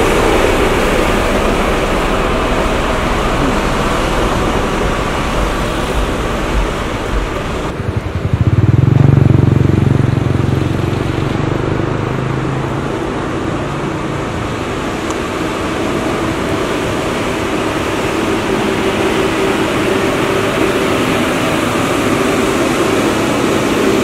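Diesel engine of a double-drum road roller running, mixed with road traffic noise. The sound changes abruptly about eight seconds in, then a deeper, louder engine hum swells and fades over the next few seconds.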